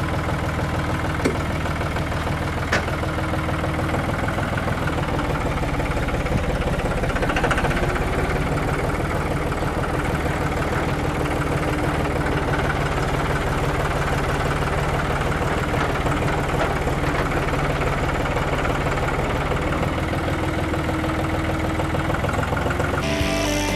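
John Deere 5203 tractor's three-cylinder diesel engine running steadily at idle, swelling briefly about seven seconds in.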